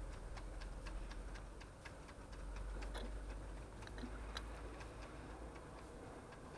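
Faint, rapid ticking runs steadily over a low hum, with a couple of slightly stronger soft sounds about three and four seconds in.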